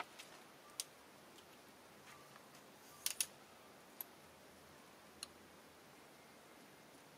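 Near silence with a few short, sharp clicks, two of them close together about three seconds in.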